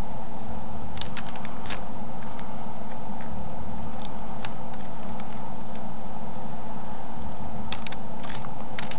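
Irregular small scratches and crinkles of freezer paper being peeled off the images transferred onto a painted rock, over a steady background hum.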